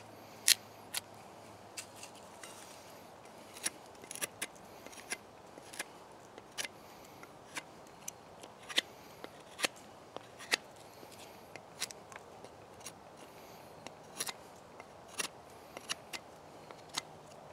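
Sharp, irregular clicks and snaps of wood being handled and worked by hand, about one or two a second, the sharpest about half a second in.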